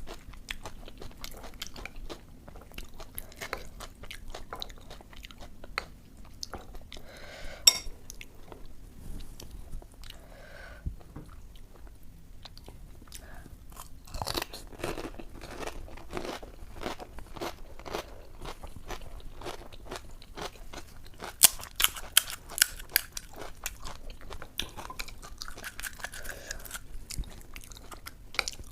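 Close-miked crunching and chewing of puchka (panipuri): crisp hollow shells filled with ghugni, bitten and chewed in a steady run of small crunches, with a cluster of louder cracks about three-quarters of the way through.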